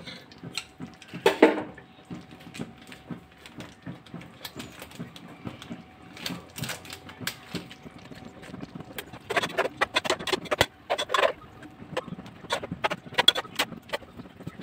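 Metal spoon knocking and scraping against a cooking pot as paste is scraped off it into the pot, with a loud knock about a second in and quick runs of taps near the end.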